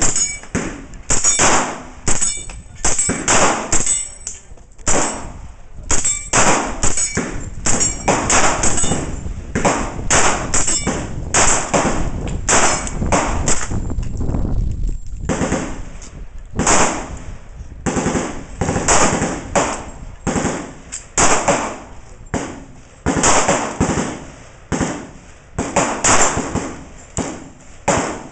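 AR-15 rifle firing a long string of shots in quick succession, unevenly spaced at roughly one to two a second.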